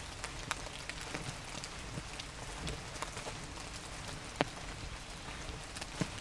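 Light rain in a forest: a steady hiss with scattered drops tapping irregularly, one sharper drop hit about four seconds in.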